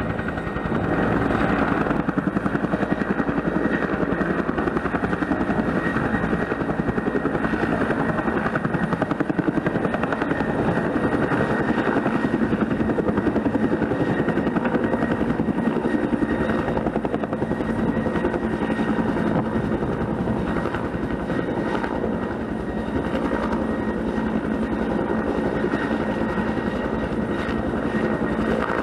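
Bell 212 helicopter running steadily, its two-bladed main rotor beating in a fast even rhythm over the steady high whine of its twin turboshaft engines.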